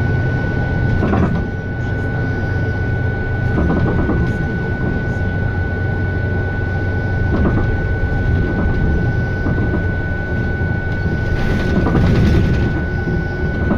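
The cabin sound of a MAN Lion's City city bus under way: its MAN D2066LUH inline-six diesel runs with a steady low hum, alongside a constant high whine. A few knocks and rattles come from the bus body.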